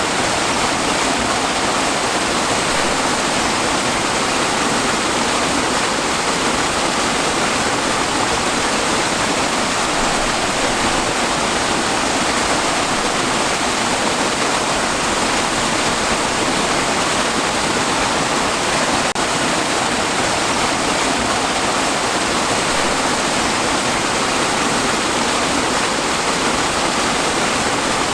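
Waterfall: a steady, full rush of falling water, even and unchanging throughout.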